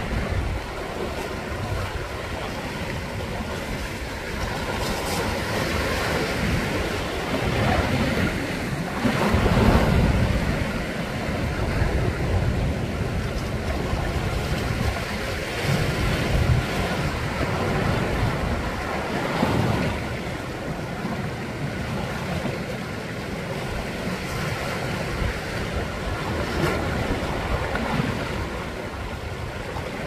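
Sea waves surging in and washing against shoreline rocks: a continuous rushing wash that swells and ebbs, loudest about ten seconds in.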